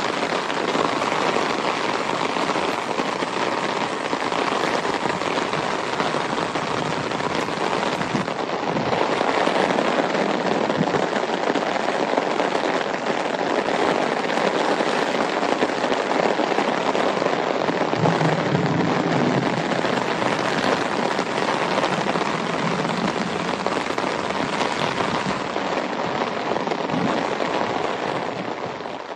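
Steady rain falling: a dense, even patter of drops that fades out sharply right at the end.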